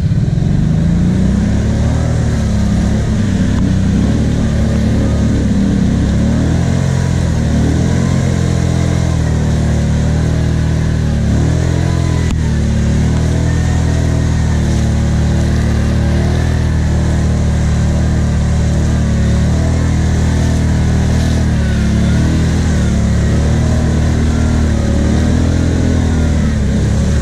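ATV engines running under load, engine speed rising and falling, as a stuck Kawasaki Brute Force 750 quad is towed out of a mud hole on a steel cable by another quad.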